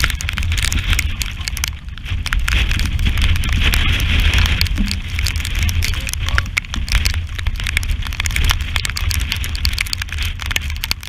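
Strong wind buffeting the microphone as a low rumble, with rain and sea spray spattering in many irregular sharp ticks over a steady rushing hiss of water, aboard a heeled sailing yacht in rough weather.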